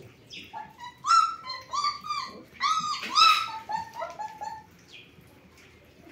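German Shepherd puppies whining and yelping: a quick run of short, high calls, several overlapping, loudest about three seconds in and dying away after about four and a half seconds.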